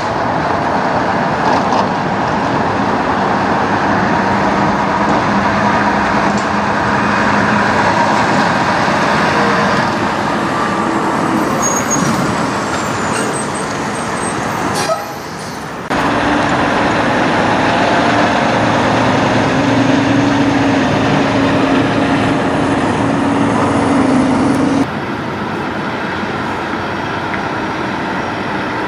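Diesel engines of semi-trucks pulling trailers at low speed, a steady engine drone with tyre and road noise. The sound drops out briefly about halfway and changes abruptly again near the end.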